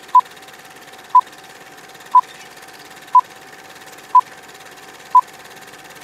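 Film-leader countdown sound effect: a short beep once a second, six in all, over a steady hiss with a faint hum.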